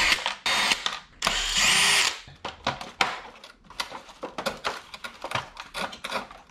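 Cordless drill backing out screws from a robotic pool cleaner's plastic housing: one burst ending just at the start and a second, longer one about a second in, its whine rising as it speeds up. Then light clicks and knocks of the plastic housing being handled.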